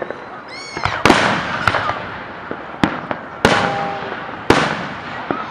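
Fireworks going off: about seven sharp bangs spread unevenly over the few seconds, with a short whistle before the first ones and a crackling hiss trailing after some of the bursts.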